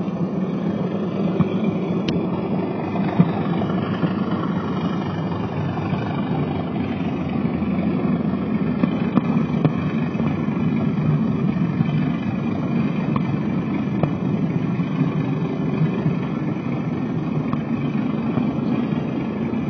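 Model Class 37 diesel locomotive's DCC sound decoder playing a steady diesel engine running sound through the model's speaker as the locomotive moves slowly along the track.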